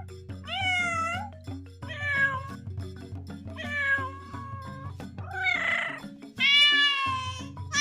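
Domestic cats meowing: five separate meows, about one every one and a half seconds, the fourth rougher and raspier, the last the loudest and longest, over background music.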